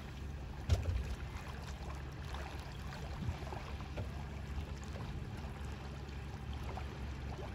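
Gentle water lapping and sloshing at the surface beside a small boat, over a steady low rumble. There is a single knock about three-quarters of a second in.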